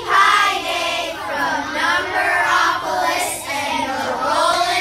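High-pitched, child-like voices singing a continuous melody.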